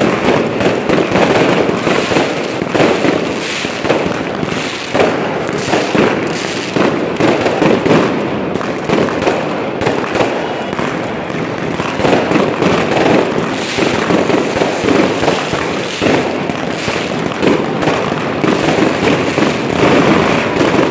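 New Year fireworks going off in a continuous barrage: many rapid, overlapping bangs from aerial shells and rockets bursting, with no pause.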